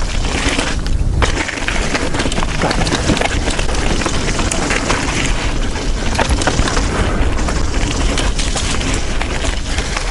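Banshee mountain bike descending a rough downhill trail, heard from an action camera on the rider: a constant rattle and clatter of chain, suspension and tyres on dirt and rock, with many sharp knocks, over a low wind rush on the microphone.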